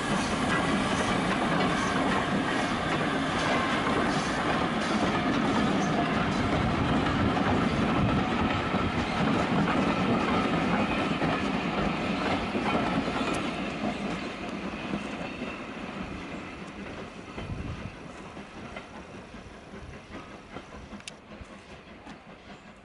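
A steam-hauled passenger train of vintage carriages rolling past close by, its wheels clicking over the rail joints. From about halfway through the sound fades steadily as the train draws away.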